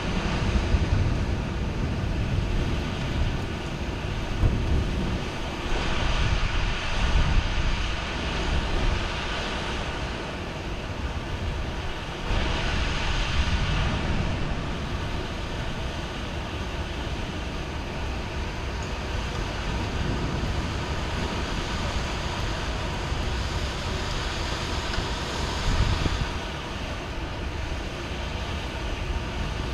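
Steady heavy rain with low rolling rumbles of thunder that swell and fade several times.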